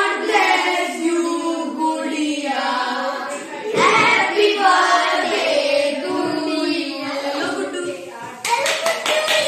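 Children singing together in sustained notes, with a short run of hand claps near the end.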